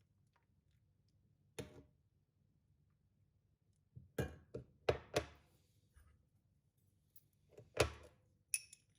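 Scattered knocks and thunks of objects being handled and set down: one about one and a half seconds in, a quick cluster of four or five around four to five seconds in, and another near the end, followed by a couple of light clicks.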